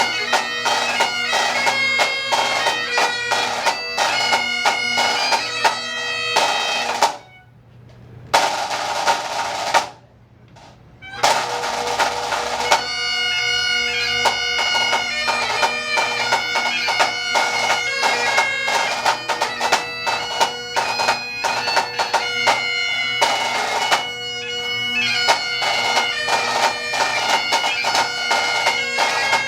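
Pipe and drum band playing: bagpipes sound a melody over their steady drone, with snare drums beating along. The sound drops out briefly twice, about a quarter of the way in.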